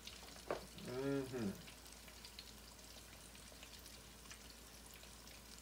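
Catfish pieces deep-frying in oil in a cast-iron Dutch oven: a steady sizzle with scattered small pops and crackles. A short hummed sound from a man's voice comes about a second in.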